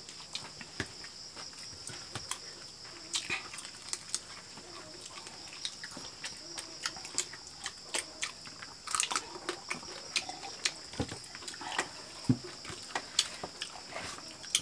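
Several people eating with their hands: wet chewing, lip smacking and sucking at fried chicken pieces, heard as many short, irregular clicks and smacks. Crickets shrill steadily underneath.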